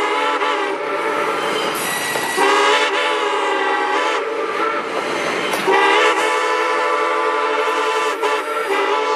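Steam locomotive whistle blowing long blasts of a steady, several-toned note. It dips briefly about two seconds and about five seconds in, then sounds again.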